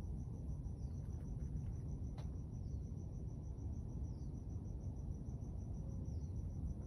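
A cricket chirping steadily, a high pulsed note about five times a second, over a steady low rumble. A short falling call recurs every second or two, and there is a single tick about two seconds in.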